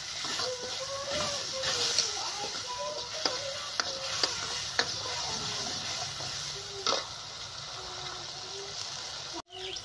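Onion, garlic and spice paste (masala) sizzling as it fries in a brass kadhai, stirred with a steel ladle. The ladle knocks and scrapes against the pan in sharp clicks.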